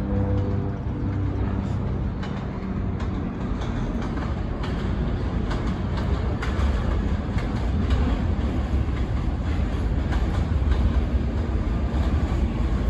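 New York City subway train approaching on an elevated line: a steady rumble with wheels clicking over the rail joints, growing louder toward the end as it draws close.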